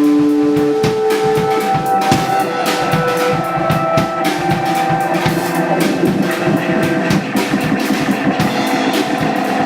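Live band music: a drum kit keeping a steady beat of kick and snare under held melodic notes that change every second or two.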